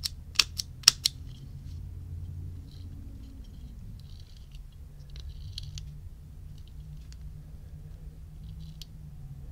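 Three sharp metallic clicks within the first second from a vintage Ronson De-Light Junior Sport petrol lighter's striking mechanism, as the fresh flint is grooved against the flint wheel. Faint light scraping and ticking follow from the flint spring screw being turned at the base of the lighter.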